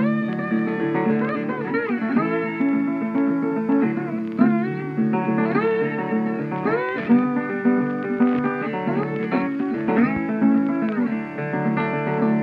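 Background music: a plucked guitar melody with sliding, bending notes.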